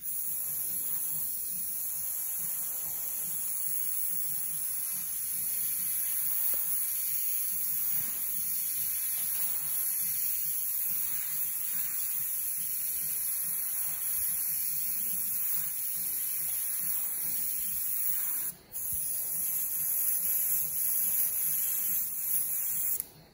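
Airbrush spraying paint with a steady high hiss, laying in shading along a taped sunburst pattern. The hiss cuts out for a moment about three-quarters of the way through, then resumes and stops abruptly near the end.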